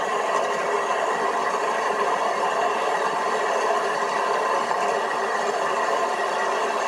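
Steady whirring running noise of a garden-railway model train travelling along its track, an even hiss-like whir with no distinct clicks or changes.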